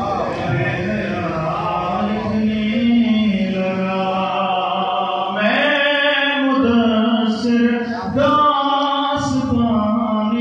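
A man's voice chanting a devotional recitation into a microphone, in long, drawn-out held notes that rise and fall.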